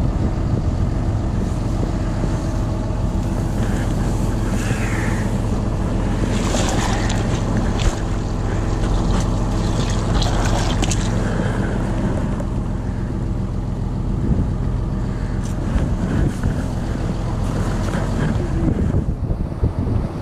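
Boat engine running steadily with a constant low hum, wind buffeting the microphone, and some rustling and knocks partway through.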